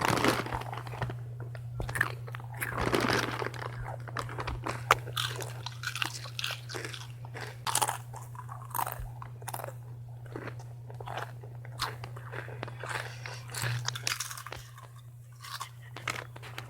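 Potato chips being crunched and chewed: a rapid, irregular run of crisp crunches over a steady low hum.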